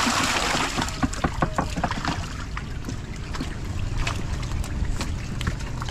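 Water splashing and sloshing, with a quick run of slaps and splashes in the first two seconds and scattered ones after, as large carp thrash in hand nets scooped from the water. A low steady hum runs underneath.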